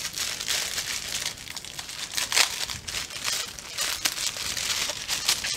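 Plastic instant ramen packet crinkling and crackling as it is worked in the hands.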